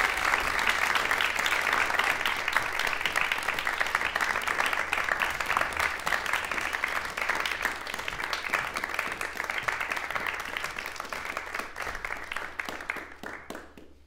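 Audience applauding, dense clapping that thins out and fades away near the end, ending in a few last scattered claps.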